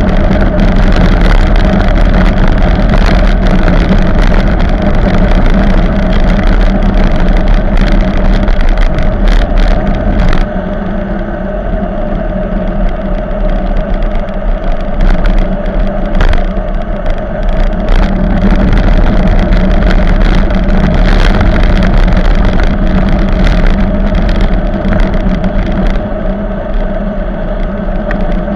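Wind rushing over the microphone of a bicycle-mounted camera on a fast downhill ride, mixed with tyre and road noise and a steady low hum. The noise eases a little about ten seconds in.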